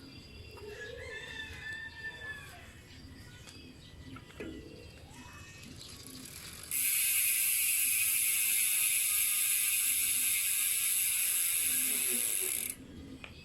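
Speedone Soldier bicycle hub freewheeling, its pawls ratcheting in a fast, steady, high-pitched buzz that starts about seven seconds in and stops suddenly about six seconds later.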